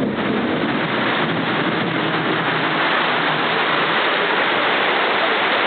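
Heavy thunderstorm rain pouring down steadily in a dense, unbroken hiss.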